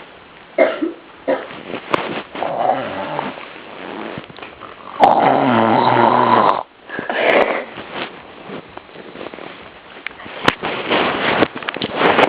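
Snoring: rough, rasping breaths, with one long, loud snore that carries a clear pitch about five seconds in.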